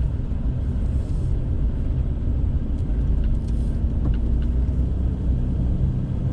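Car driving, with a steady low rumble of engine and tyre noise.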